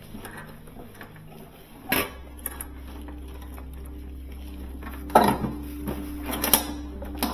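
Metal clanks and knocks as the refrigeration compressor of a Sub-Zero 424 wine cooler is worked loose and pulled out of its sheet-metal compartment. There is one sharp knock about two seconds in and a cluster of clanks in the second half, over a low steady hum.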